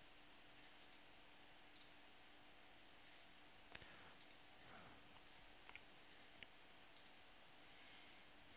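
Faint, scattered clicks of a computer mouse over near-silent room tone with a low steady hum.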